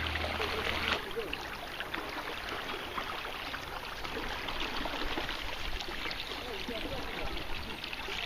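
Floodwater splashing and trickling, a busy hiss of small splashes, with faint voices in the background. A low steady hum cuts off about a second in.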